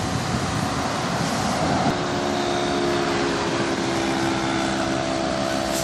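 Heavy truck engine idling: a steady drone, with an even hum that comes in about two seconds in and holds.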